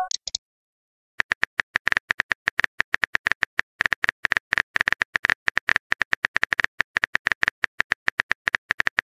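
Rapid, uneven keyboard tap clicks from a texting app as a message is typed out, many a second. They begin after about a second of silence that follows the end of a short chime.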